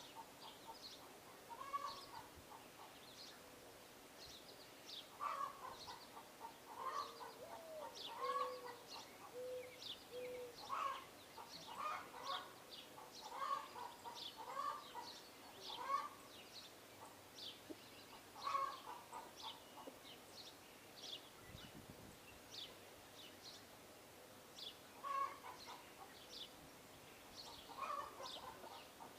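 Birds calling around feeders: short, repeated calls, often about half a second apart, with quick high chirps over them and a few lower notes in the first half.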